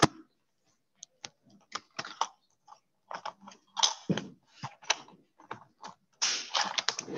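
Irregular light clicks and taps, several a second, with a longer scratchy burst near the end.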